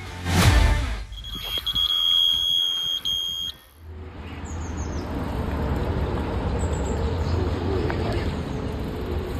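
Electronic bite alarm on a catfish rod sounding one continuous high beep for about two and a half seconds: a fish has taken the bait and is running line. It comes after a short whoosh near the start and gives way to steady outdoor background noise with a couple of brief bird chirps.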